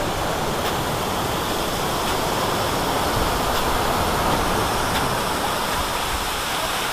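Waterfall rushing steadily, a dense, even roar of falling water.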